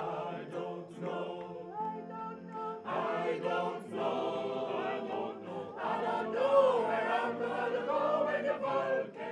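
A men's choir singing together in harmony, several voices holding and moving between long notes.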